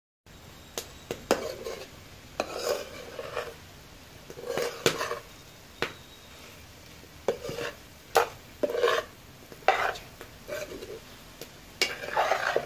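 Metal spatula stirring pasta in a pan: irregular scraping strokes, with sharp clinks of metal against the pan between them.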